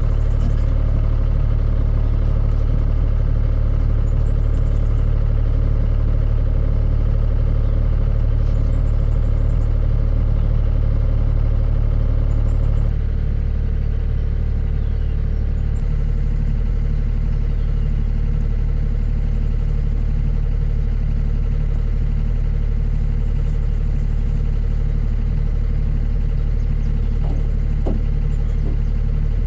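Vehicle engine running steadily at a constant speed, stepping down slightly in level about halfway through.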